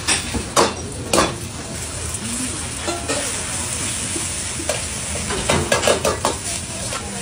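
Egg and rice for fried rice stir-frying in a hot wok with a steady sizzle, while a metal ladle knocks and scrapes against the wok. There are sharp clanks in the first second or so and a quick run of them around five to six seconds in.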